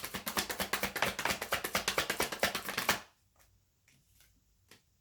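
A tarot deck being shuffled by hand: a rapid, even patter of cards, about ten a second, that stops abruptly about three seconds in, followed by a few soft single clicks as cards are handled.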